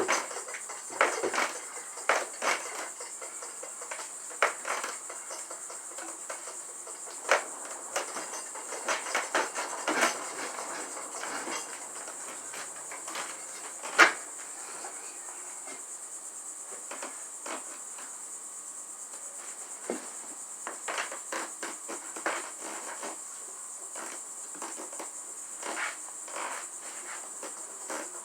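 Irregular metal clanks and knocks of a manual tire-changing tool working an old tire off its wheel, with one sharp bang about halfway through; the first tire fights him because its bead is loosened on only one side. A steady high chirring of crickets runs underneath.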